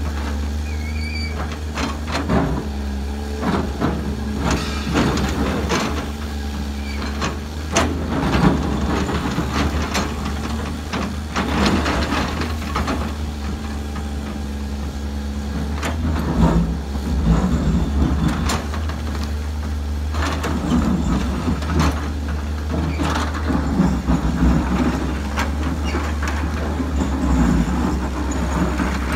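Samsung SE350LC-2 excavator's diesel engine, a larger replacement engine run without its engine cover, working under load and surging as the machine digs and swings. Rock and soil clatter and knock into the dump truck's bed now and then.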